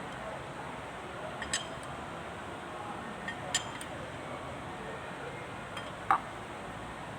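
Light metal clinks, a few in all, the loudest a ringing clink about six seconds in, over a steady background hiss.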